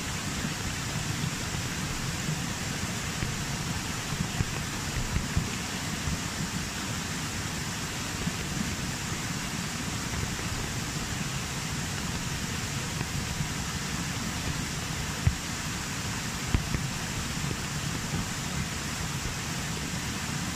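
Steady rushing noise of rain falling and a small waterfall pouring over rock, with a few soft thumps now and then.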